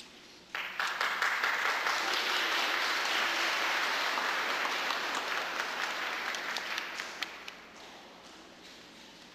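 A congregation applauding: the clapping breaks out suddenly about half a second in, holds steady for several seconds, then dies away with a few last scattered claps.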